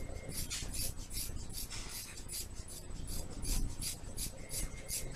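Scissors snipping through a thick ponytail of hair, a quick run of short dry cuts, about four a second.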